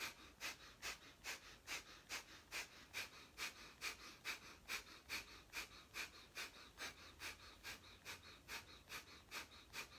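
Breath of fire: a person making quick, forceful exhalations through the nose with the belly pumping, about two and a half breaths a second, steady and faint.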